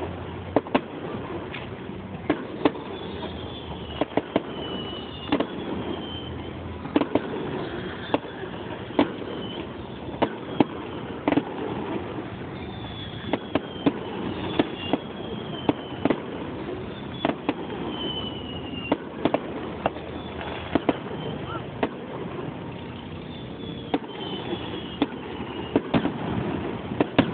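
Fireworks display: many sharp bangs from bursting shells at irregular intervals, sometimes several close together. Short falling whistles sound between the bangs over a steady crowd murmur.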